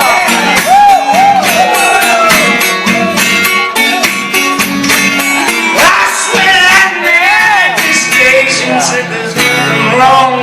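Live country band playing an instrumental passage: rhythmic acoustic guitar strumming under a lead line that slides up and down in pitch in repeated arcs.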